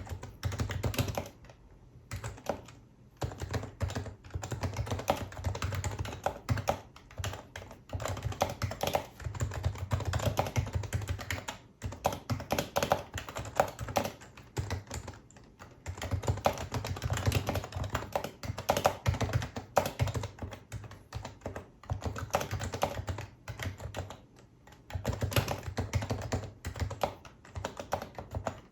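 Typing on a Happy Hacking Keyboard Professional HYBRID Type-S with electrostatic capacitive (Topre) switches: a fast, dense run of soft key clicks, with brief pauses about two seconds in, near the middle and near the end.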